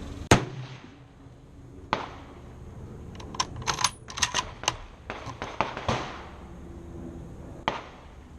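Rifle sounds: one sharp bang about a third of a second in, then a run of quick metallic clicks and clinks in the middle, with a few further knocks.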